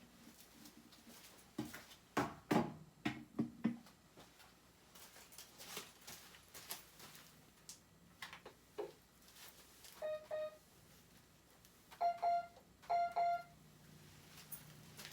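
Floor keyboard played by foot: a few knocks and thumps as it is stepped on and handled, then three short electronic notes near the end, the last two close together.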